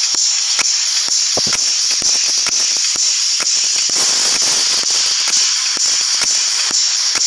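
Handling noise on a phone's microphone: a steady hiss with irregular scratching, rubbing and clicking as a hand covers and rubs against the camera.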